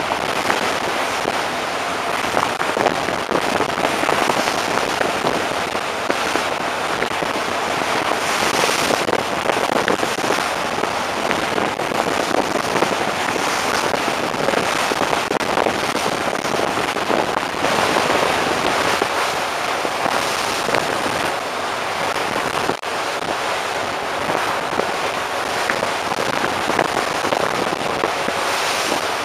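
Sea water rushing along the hull of a moving ferry, a steady, dense hiss with no letup.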